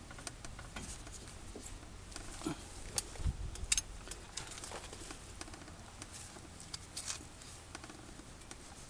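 Faint scattered clicks and knocks of a socket and breaker bar working on tight caliper bracket bolts of a truck's front brake, with a cluster of sharper clicks and a low thud about three seconds in.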